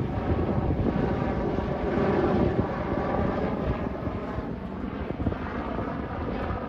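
Jet airliner engines running, a steady rush of noise with several whining tones held through it.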